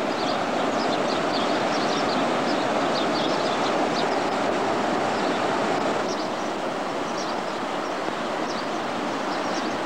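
Steady roar of breaking surf, with faint short high chirps scattered through.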